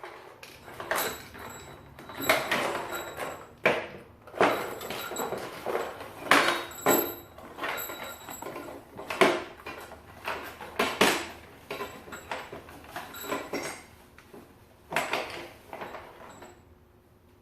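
Metal engine parts and hand tools being handled and fitted: an irregular run of clinks, knocks and scraping that stops about a second before the end.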